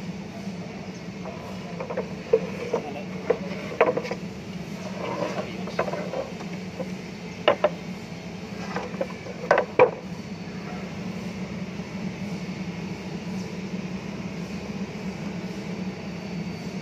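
Steady low mechanical hum with a scatter of sharp knocks and clacks, coming in two short runs, around two to four seconds in and again around seven to ten seconds in.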